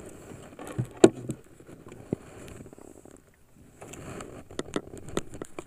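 Irregular knocks and sharp clicks of things being handled aboard a small fishing boat, over a faint background hiss. The loudest knock comes about a second in, and a quick run of clicks near the end.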